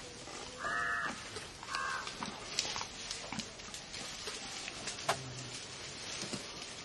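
A crow cawing twice, about a second apart, over scattered rustles and snaps from dry grass and twigs.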